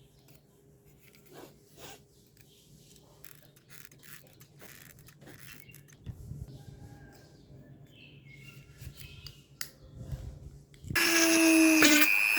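Faint clicks, taps and rubbing of small parts being handled. About eleven seconds in, a much louder hum with several steady tones cuts in suddenly.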